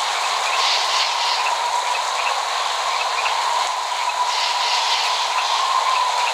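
Steady rain falling, an even hiss with scattered light drips and ticks; no thunder.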